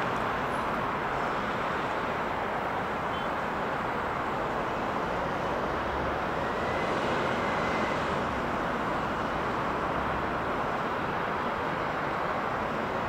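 Steady airport background noise: an even, wide rushing hum with no single event standing out.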